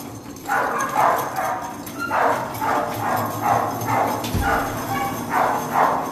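Shelter dogs barking over and over, about two barks a second, with a dull thump about four seconds in.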